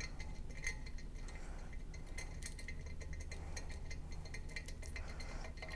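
Faint metallic ticks and clinks of an M8 socket cap head screw with its washer being turned out by hand from a stainless steel flange, over a steady low hum.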